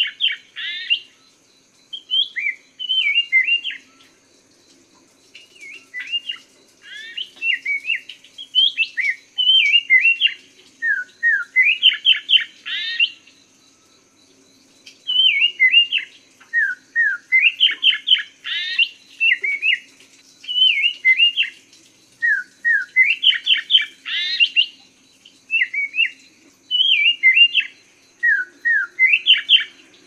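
Chestnut-capped laughingthrush (poksay mandarin) singing: loud whistled phrases of a few quick rising and falling notes, each ending in a rapid run of upward sweeps, repeated every two to three seconds with short pauses between.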